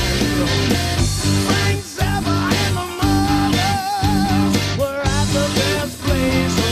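Rock music with electric guitar, singing and a steady beat.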